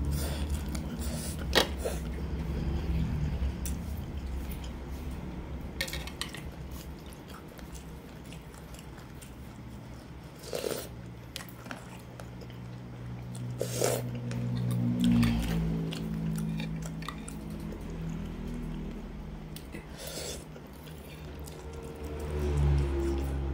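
Close-miked eating sounds: biting into and chewing crispy fried chicken, then spicy noodles and broth. A few sharper mouth noises stand out.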